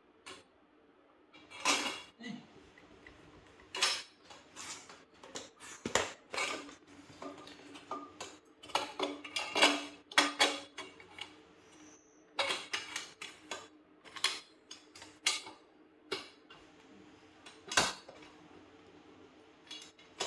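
Irregular metal clinks and clanks of a motorcycle exhaust header pipe and its fittings being handled and fitted onto the engine, over a faint steady hum.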